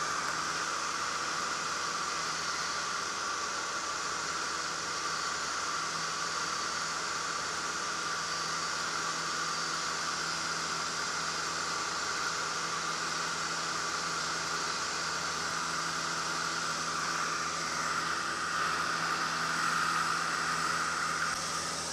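Marquart MA-5 Charger biplane in cruise flight, heard from the open cockpit: a steady engine and propeller drone under loud wind rushing past. It gets a little louder near the end.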